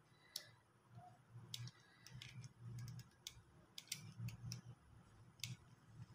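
Faint, irregular clicks from a hot glue gun being worked as glue is laid on, about half a dozen sharp ticks spread over a few seconds.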